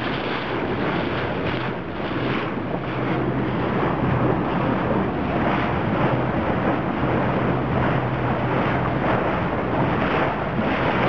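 Wind buffeting the microphone and water rushing past the hull of a Karnic 2050 cruiser under way, with the steady low hum of its Suzuki DF150 outboard engine underneath.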